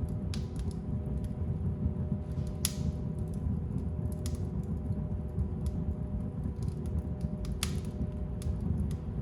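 Wood fire crackling in a fireplace: scattered small snaps and ticks over a steady low rumble of the flames, with two louder pops, one about a third of the way in and one near the end.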